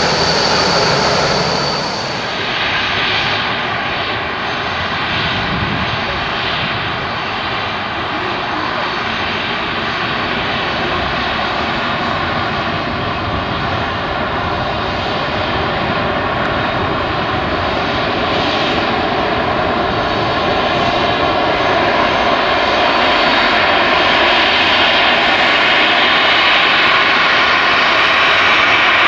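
Boeing 737-300 freighter's CFM56-3 turbofans running as it rolls off the runway after landing: a steady jet whine with several held tones, growing louder over the last several seconds as the aircraft turns toward the listener. The first two seconds carry a Boeing 787's engines before the sound changes abruptly.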